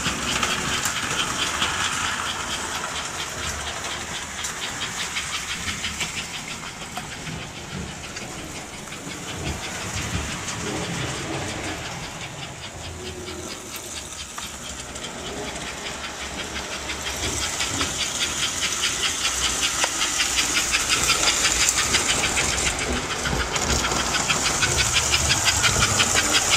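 American Flyer S gauge model steam locomotive running under power, its smoke unit giving a fast, even chuffing hiss over the rumble and clatter of wheels on the track. It grows louder in the second half.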